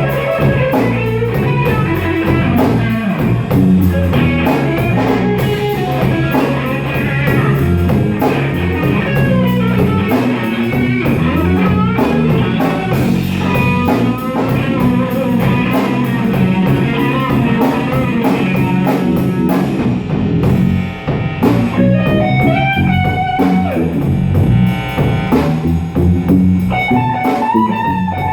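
Slow blues played by a band: an electric guitar plays lead lines with string bends over bass and a drum kit, with no singing.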